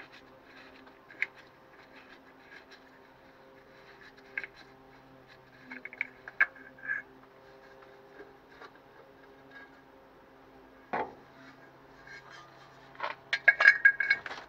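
Scattered small clicks and scrapes of the rusty steel air filter cover being worked loose from a Morris Minor's carburettor, with a single knock about eleven seconds in and a burst of metallic clattering near the end as the cover comes away.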